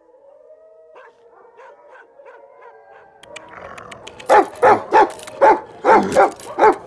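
Dogs howling faintly, their long gliding calls overlapping, then a dog barking loudly, seven barks in quick succession over the last two and a half seconds.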